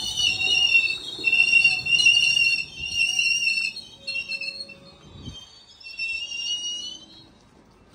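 Steel wheels of a GO Transit double-deck passenger train squealing as the cars roll slowly past, several high, wavering squeal tones over a low rumble that come and go and die away near the end.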